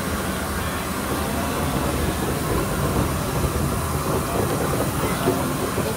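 Southern Railway Bulleid Battle of Britain class steam locomotive 34059 moving slowly along the platform tender-first, with a steady rumble of wheels and running gear on the rails.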